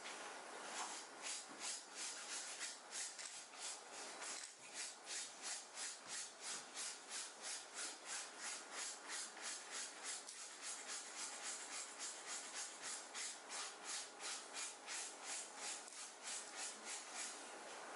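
Brisk, even scrubbing strokes on a shirt's fabric, about three a second, starting about a second in, as a stain is scrubbed out of it by hand.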